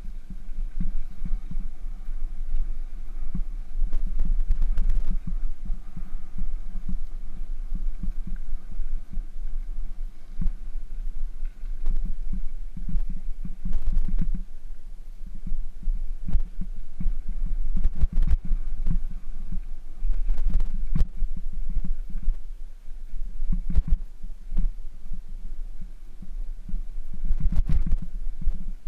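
Continuous low rumble and buffeting from the camera riding along on a bicycle over a rough gravel trail: wind on the microphone and tyre rumble, with many irregular thuds as the bike jolts over stones and ruts.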